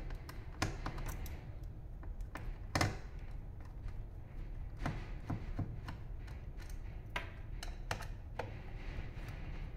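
Irregular small clicks and taps of a screwdriver and fingers on the plastic housing of a touchscreen POS terminal, one click about three seconds in louder than the rest, over a low steady hum.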